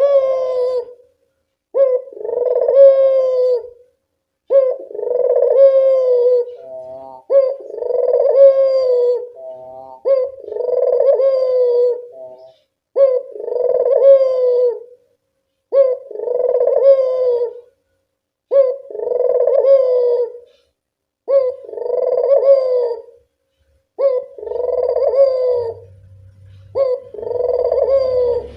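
A puter dove (ringneck dove) cooing. The same rolling coo phrase repeats about every two and a half to three seconds, with short pauses between phrases.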